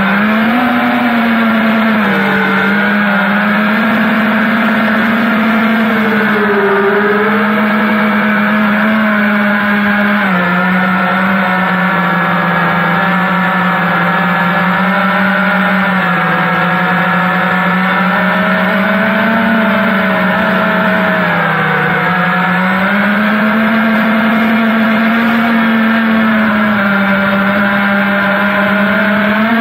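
FPV quadcopter's electric motors and propellers, heard from its onboard camera: a steady high buzz whose pitch rises and dips a little as the throttle changes.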